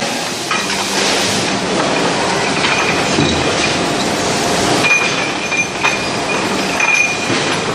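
Automatic billet feeder of an electric forging furnace running: the chain conveyor rattles and steel billets clink against one another and the guides, over a steady factory din. A thin high squeal sounds from about five seconds in for a couple of seconds.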